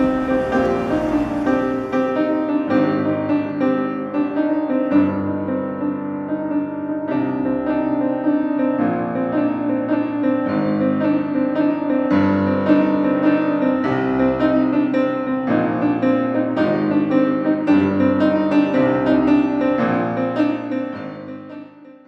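Instrumental background music with chords changing every second or two, fading out near the end.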